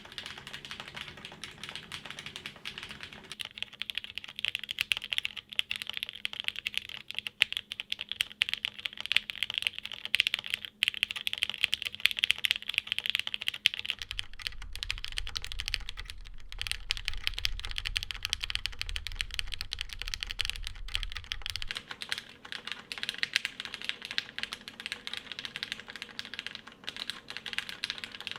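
Continuous typing on a plateless, tadpole-mounted TKL mechanical keyboard with lubed and filmed JWK Black linear switches and JTK keycaps: a dense, unbroken stream of key clacks. A faint low hum runs underneath for several seconds in the middle.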